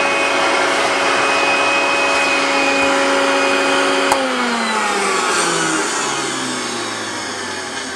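Hoover Junior 1346A upright vacuum cleaner running steadily, then switched off with a click about four seconds in, its motor winding down in a falling whine.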